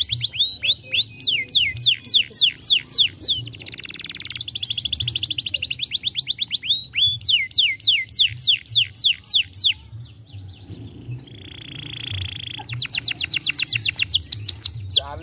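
Domestic canary singing. Its song is made of phrases of rapidly repeated, downward-sweeping whistled notes, several per second, with a short buzzy roll about eleven seconds in.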